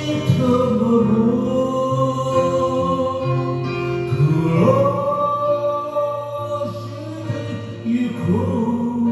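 Karaoke cover of a slow Japanese ballad: a singer holds long, drawn-out notes over a backing track with guitar.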